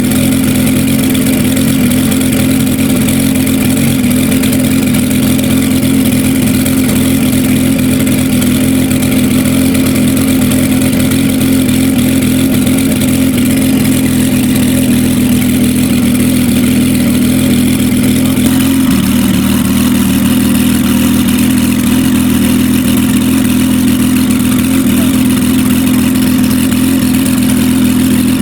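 The Bugatti EB110 S SC IMSA's quad-turbocharged V12 running at a steady, loud idle or constant speed, its note dropping slightly about two-thirds of the way through.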